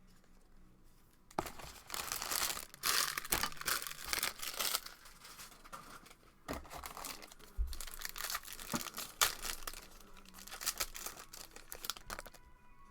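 Plastic trading-card pack wrapper being torn open and crinkled by hand, in irregular crackling bursts that start about a second in and stop just before the end.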